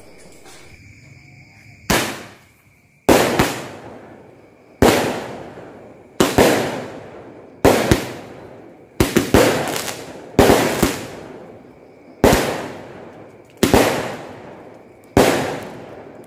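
Two 5-shot Roman candles firing: about ten sharp bangs, one every one to two seconds and a few doubled, each trailing off in a decaying echo.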